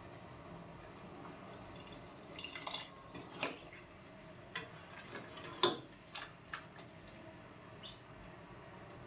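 Ladle stirring thin coconut-milk broth in a stainless steel pot: irregular splashes and sloshing, with light clinks of the ladle against the pot, the loudest a little past halfway.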